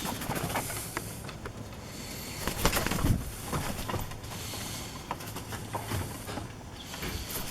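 Kaka parrots calling, mixed with scattered sharp clicks and knocks; the loudest burst comes about three seconds in.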